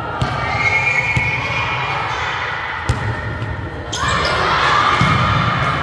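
Volleyball hits in a large indoor gym: a few sharp thuds of the ball being played, the sharpest about three seconds in. Players' voices rise into shouting about four seconds in.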